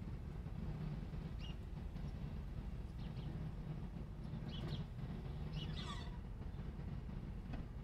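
A few short bird chirps, the clearest about four and a half and six seconds in, over a steady low hum of background noise.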